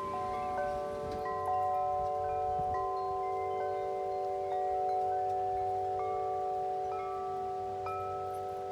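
Wind chimes ringing in the wind: tubes struck irregularly, a new note every half second to a second, each ringing on for several seconds so the notes overlap.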